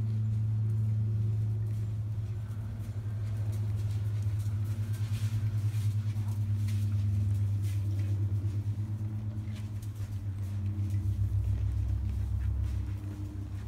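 A steady low motor hum with a few faint clicks over it.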